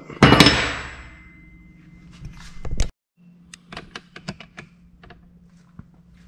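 A single loud metallic clank with a brief ring just after the start, from tools and steel suspension parts being handled during lower control arm removal. After a cut, a few light clicks and taps over a steady low hum.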